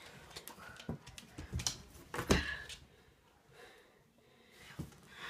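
Scuffling, clicks and knocks on a hardwood floor as a dog and a boy move about, with one louder knock a little over two seconds in.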